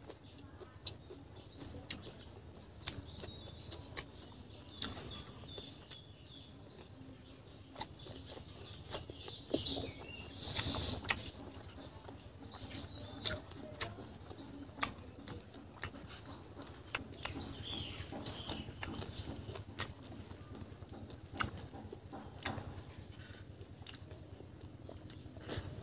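Close-miked eating sounds as a man chews rice and barbecued pork taken by hand: irregular wet chewing and lip-smacking clicks, with a louder bite about ten seconds in. Faint bird chirps sound in the background.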